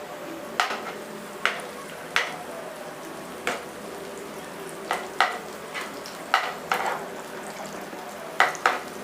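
Ginger, garlic and green chillies frying in a little oil in a pan, with a steady soft sizzle, while being stirred: the stirring utensil knocks and scrapes against the pan about a dozen times at an irregular pace.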